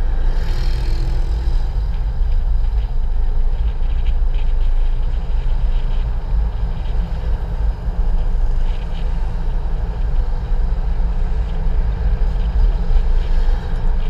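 A car driving along: a steady low rumble of wind and road noise.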